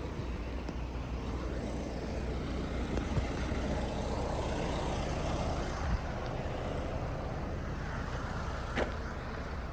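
Street traffic: a motor vehicle passing, its noise swelling in the middle and easing off, over a steady low rumble.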